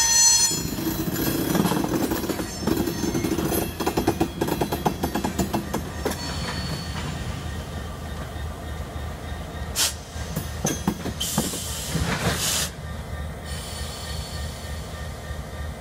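Whale-belly cement hopper cars rolling slowly past, their wheels clicking in quick runs over rail joints, with a few sharp clanks near the middle. Canadian Pacific GP20C-ECO diesel locomotive 2279 then passes, its engine running as a steady low hum underneath.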